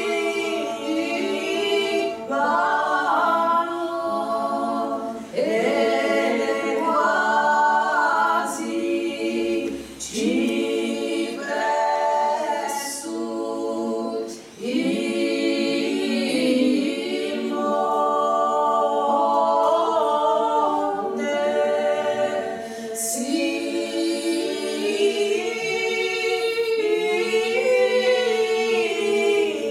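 Small women's choir singing a cappella in several parts: a low held note runs beneath upper voices that move from phrase to phrase, with brief pauses between phrases.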